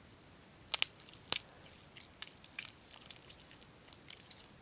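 Sticky, unactivated Play-Doh jiggly slime being squished and pulled in the hands: a few sharp wet pops about a second in, then scattered faint sticky clicks.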